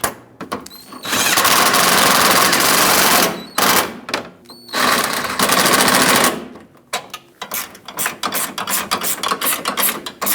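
A power tool runs in two bursts of about two seconds each, driving in the hood latch's 10 mm mounting bolts, then a ratchet clicks rapidly as the bolts are snugged down.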